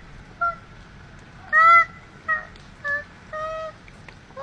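A koala crying out in distress in a rapid series of short, high, honking cries, about one every half second, the loudest about a second and a half in.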